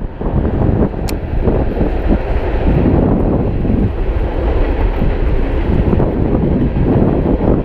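Wind buffeting the camera microphone: a loud, steady low rumble.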